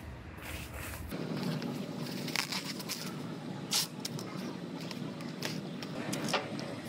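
Plastic masking film rustling and crinkling as hands handle it over car bodywork, with a few sharp crackles along the way.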